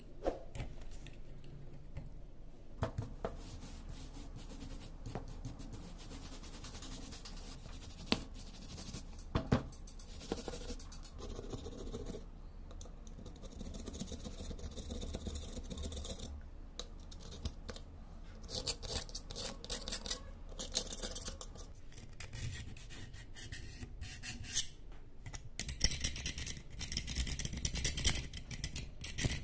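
Metal scraper scratching rust and flaking paint off the steel body of an old air stapler, in irregular strokes with scattered sharp clicks as flakes break away, busier near the end.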